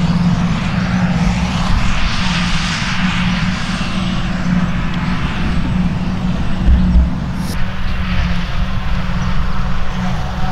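Claas Jaguar 950 self-propelled forage harvester chopping grass, with a Fendt tractor pulling the silage wagon alongside: a steady, even engine-and-chopper drone. The sound changes abruptly about seven seconds in.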